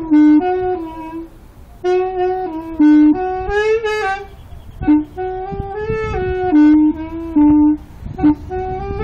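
Homemade saxophone made from a watering can, played as a melody of short, punchy notes and longer held notes, with a wavering note about four seconds in.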